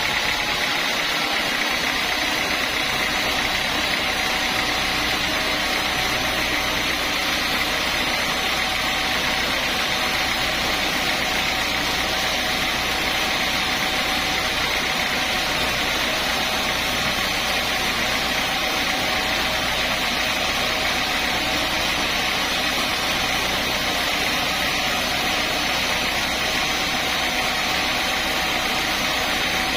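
Sawmill machinery running steadily: a constant mechanical drone with a hiss over it, holding the same level throughout.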